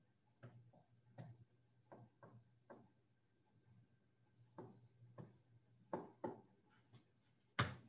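Dry-erase marker writing on a whiteboard: a string of short, faint strokes, with a louder stroke near the end.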